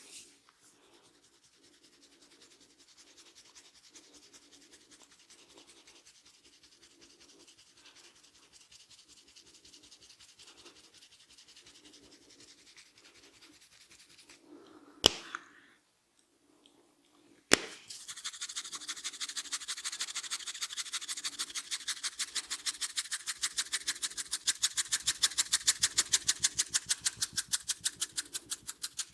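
Head massage, hands working the hair and scalp: soft rhythmic rubbing at first, two sharp cracks about halfway through, then louder, fast, even scrubbing of the hair.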